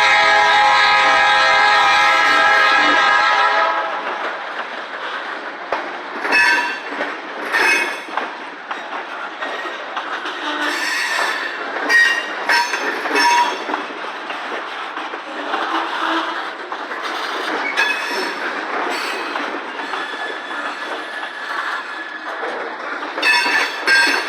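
Diesel locomotive horn on a Finger Lakes Railway train led by GE B23-7 units, one loud blast that cuts off about three and a half seconds in. Then the train rolls past with a steady rolling noise and repeated clicks of wheels over rail joints.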